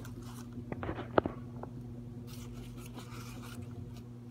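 Newspaper wrapping rustling and crinkling as it is pulled open, with a few sharp clicks about a second in. A low steady hum underneath.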